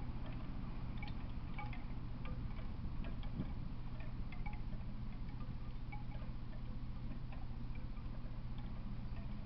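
A steady low hum with faint, scattered high tinkling blips over it.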